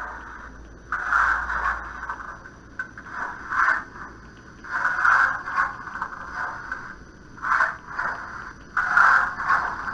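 Model steam locomotive's DCC sound decoder playing steam exhaust chuffs through its small onboard speaker, coming unevenly, often in pairs about half a second apart, over a faint steady high whine.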